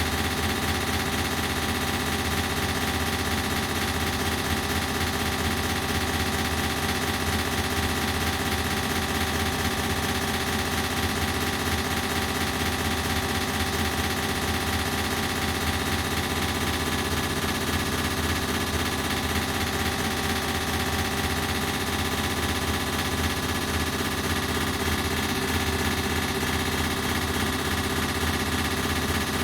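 Ceiling fan running at a steady speed: an even hum with several steady tones over a whooshing hiss, played through an added echo effect.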